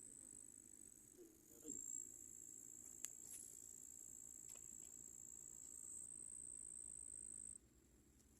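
Faint, steady, high-pitched trilling of crickets that cuts off suddenly near the end. A brief low sound about two seconds in and a sharp click about three seconds in.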